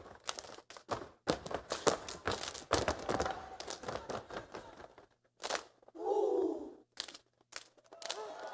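Step team stepping on a wooden stage: a fast run of sharp stomps and claps that thins out after about five seconds. A short voice-like cry comes about six seconds in, followed by a few scattered hits.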